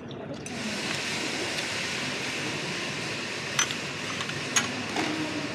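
A steady rushing hiss sets in about half a second in and holds, with a few sharp clinks of metal cutlery against a plate over it.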